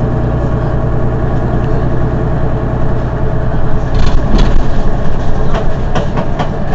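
Mercedes-Benz Citaro city bus engine idling steadily with a low hum while the bus stands still. About four seconds in the sound shifts, with a short falling tone and a run of sharp clicks and knocks through the rest.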